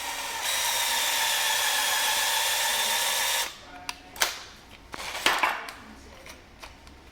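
A power drill running steadily under load as it drives a double-threaded baluster dowel screw, chucked in place of a bit, into the wood. The steady whine stops abruptly about three and a half seconds in, followed by a few short knocks and clicks.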